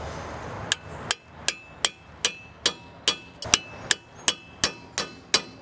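Hammer blows on a Harbor Freight hand impact driver seated in a seized brake rotor retaining screw. There are about three sharp metallic strikes a second, each with a short high ring, starting a little under a second in. Each blow drives the bit down and twists it to the left to break the stubborn screw loose.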